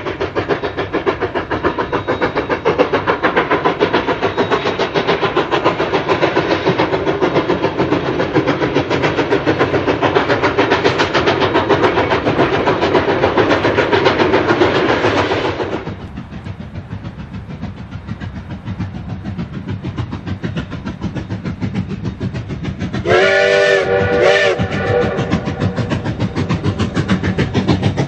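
Narrow-gauge K-36 steam locomotive running, a loud steady rush of train noise that drops off abruptly about halfway through to quieter running. Near the end the steam whistle sounds twice, a longer blast and then a short one.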